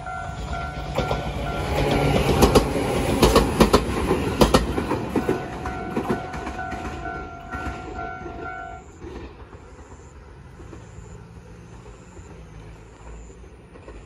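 Level-crossing alarm ringing in a steady repeating ding while a Tobu Koizumi Line train passes over the crossing, its wheels clacking over the rail joints, loudest a few seconds in. The alarm stops about nine seconds in, as the crossing clears.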